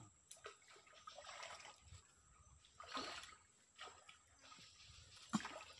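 Faint sloshing and splashing of water as a person wades through a shallow muddy creek. There are a few soft swells, the loudest about three seconds in, and a single sharp click near the end.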